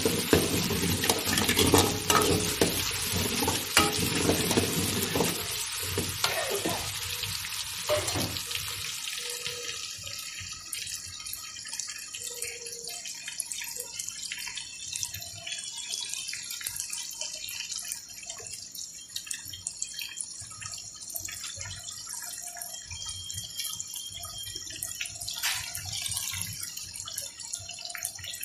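Shallots, garlic and green chillies frying in hot oil in a pan: a loud sizzle with steel ladle scrapes and knocks for about the first eight seconds, then settling to a quieter sizzle with small pops and crackles.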